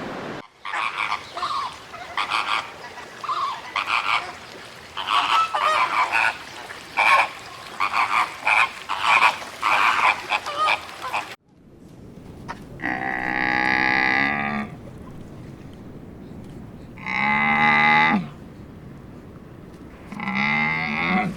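Animal calls in two parts. First comes a long run of many short, rapid calls. After an abrupt cut about eleven seconds in, three long, drawn-out calls follow, a few seconds apart.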